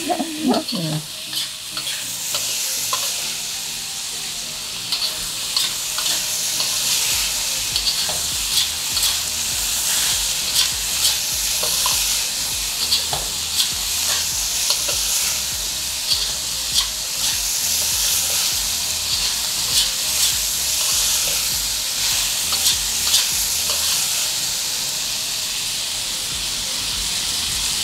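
Diced pork and garlic frying in hot oil in a pan: a steady sizzle, stirred with frequent short clicks and scrapes of the utensil against the pan.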